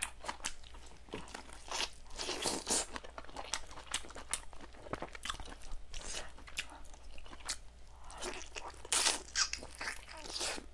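Close-miked eating sounds of boiled chicken: irregular crisp clicks and wet smacks of biting and chewing.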